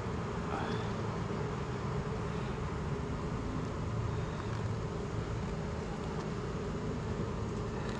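Steady hum of a honeybee colony buzzing from an opened hive.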